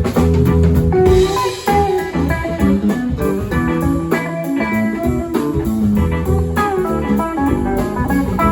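Live band playing a bluesy groove: electric guitar picking out notes over a bass line and a steady drum beat.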